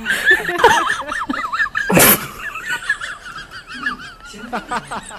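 High-pitched wavering laughter, with a sharp sneeze-like burst about two seconds in.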